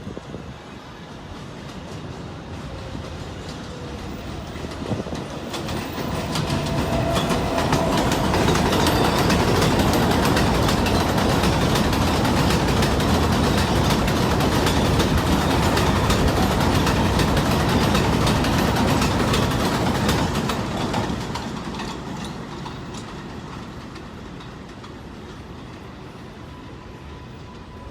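Kawasaki R188 subway train passing, its wheels clattering over the rail joints. The noise builds over several seconds, stays loud for about twelve seconds, then fades away.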